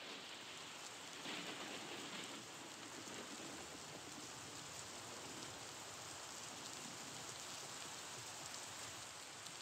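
Steady, even hiss, with a brief louder rustle a little over a second in as hands handle the dough strands on the sheet pan.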